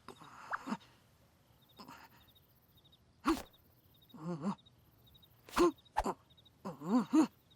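Cartoon character noises without words: short squeaky squeals and grunts that bend up and down in pitch, between sharp comic sound-effect hits about three, five and a half and six seconds in.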